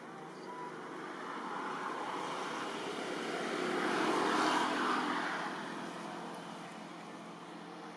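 An engine passing by, its noise swelling to a peak about four and a half seconds in and then fading away, over a steady low hum.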